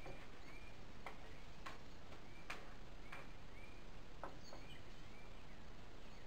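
Metal spoon scooping cubed avocado from its skin: a few faint, irregular clicks and taps. A small high chirp repeats steadily in the background, about every half second or so.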